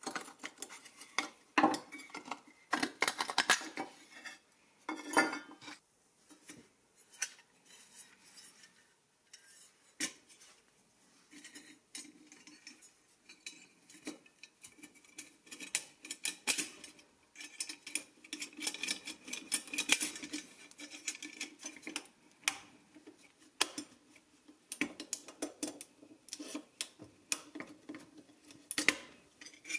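Hand tools working the rusty pressed-steel parts of a 1960s Tonka toy truck: a flat-blade screwdriver prying at the plow mount, then needle-nose pliers working a pin on the wrecker boom's crank shaft. The result is irregular metal clicks, scrapes and clinks.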